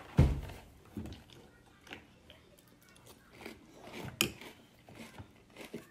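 A low thump about a quarter second in, then quiet eating sounds: a metal spoon clinking in a ceramic bowl of flake cereal and milk, and crunchy chewing.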